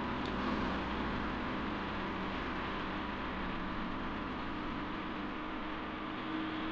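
Steady background hiss with a faint low hum underneath, even and unchanging, with no distinct sounds standing out.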